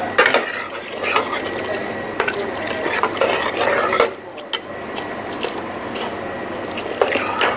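A spatula stirring and scraping through wet grated ash gourd in a stainless steel pot as a stream of milk is poured in, with scattered clicks of the spatula against the pot.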